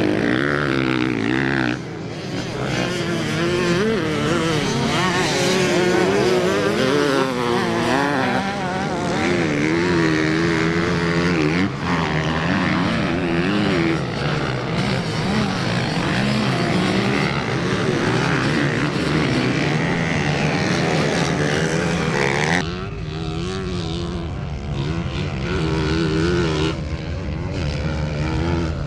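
Off-road motorcycle engines revving up and down as the bikes race, with the pitch rising and falling constantly. The sound changes abruptly about three-quarters of the way through.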